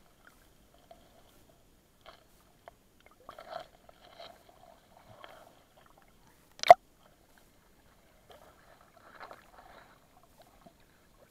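Underwater sound through a submerged camera: sparse faint crackles and clicks, with one sharp, loud click about two-thirds of the way through.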